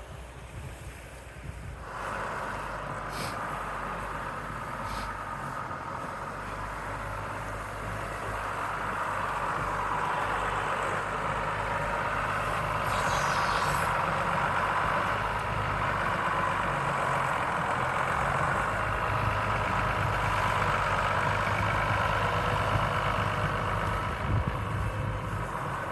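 A vehicle engine running steadily with a low hum. A steady rush comes in about two seconds in and grows louder around ten seconds in.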